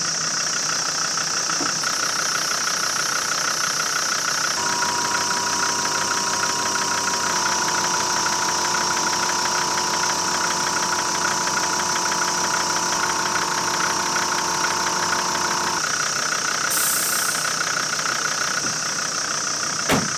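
Portable air compressor running steadily, reinflating the 4x4's tyres after they were let down for off-roading. A single sharp knock comes near the end.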